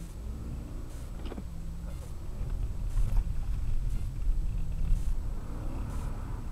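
Car engine and road rumble heard from inside the cabin while driving and turning on a snowy sandy track, the engine rising in pitch as it accelerates just after the start and again near the end. A single sharp click about a second and a half in.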